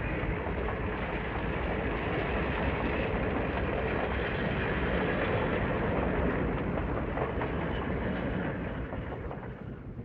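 Train rolling along the track: a steady, dense rumble and rattle of the cars with no horn. It begins fading out about eight seconds in.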